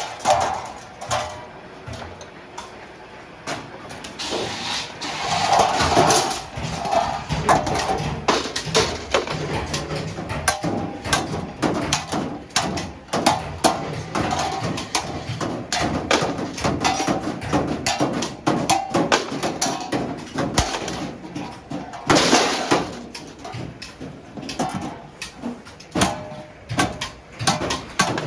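Hammer strikes on a sheet-iron griddle plate, irregular and several a second, with metallic knocking and clanking between them. A short burst of hissing noise comes about three quarters of the way through.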